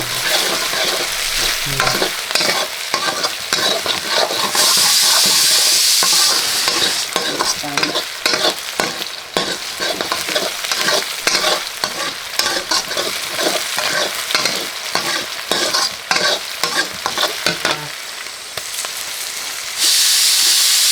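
Curry ingredients frying in a pan, stirred with many quick scraping strokes over a steady sizzle. The sizzle grows louder for a second or two about four seconds in and again near the end.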